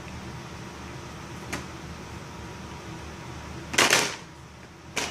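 A child making a loud noise: a short, sharp burst about four seconds in and another brief one near the end, over a steady low hum.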